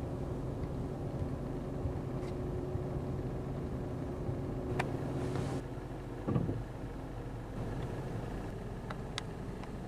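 A motor vehicle engine idling with a steady low hum, which drops away a little over halfway through. A few faint clicks and a short rising sound come later.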